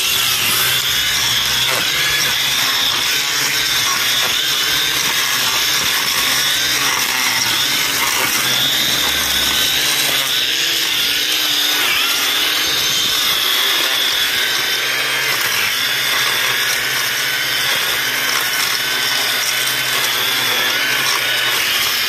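Electric edger used as a string trimmer, running steadily as its spinning line cuts through tall dry grass.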